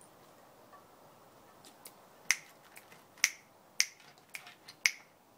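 A series of sharp clicks starting about two seconds in, with four or five loud ones roughly half a second apart and fainter ones between: small hard objects knocking together as pebbles in a plant pot are handled.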